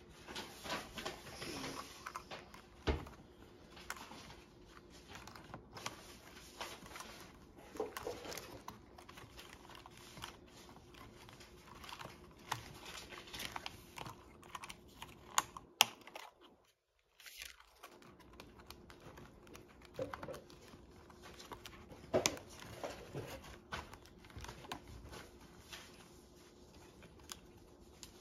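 A replacement backlit keyboard being handled and fitted into a Lenovo X240 laptop's frame: irregular plastic clicks, taps and rustling as it is laid in and pressed into place. There is a sharp click about halfway through.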